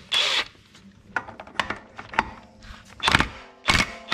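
Sharp metal clicks and clanks as an impact socket is fitted onto a CVT primary clutch nut and the clutch is handled, with a few short louder knocks about three seconds in.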